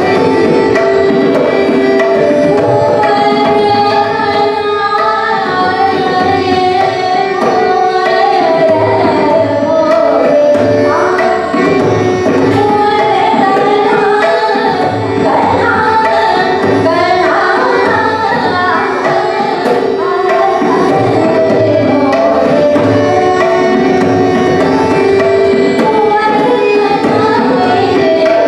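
Hindustani classical vocal music: a woman sings held notes and gliding melodic phrases of a bandish while a tabla keeps time with repeated deep bass strokes.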